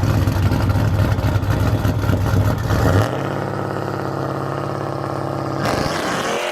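Car engine running, heavier and louder for about the first three seconds, then settling to a steady idle.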